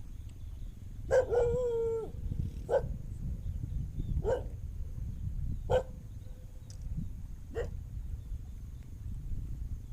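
A dog barking: one drawn-out yelp about a second in, then four single barks spaced about a second and a half apart, over a steady low rumble.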